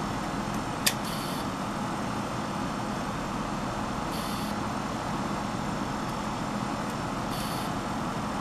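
Steady outdoor background noise, a low even hum under a hiss, with one sharp high click about a second in and a few brief soft hisses later.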